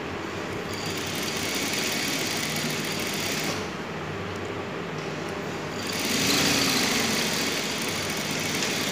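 Industrial flatbed sewing machine running as it stitches a seam through cotton fabric, in two runs: it stops for about two seconds in the middle, then starts again, louder at first.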